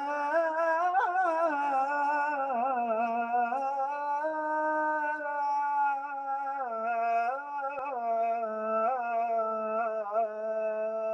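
A man's voice chanting the adhan, the Islamic call to prayer, in long melismatic phrases, the pitch winding up and down in ornaments with only brief breaks.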